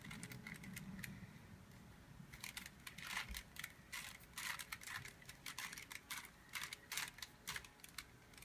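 Rubik's cube being turned by hand: quick, irregular plastic clicking and clacking as the layers are twisted, with a short lull about a second in and then rapid runs of turns.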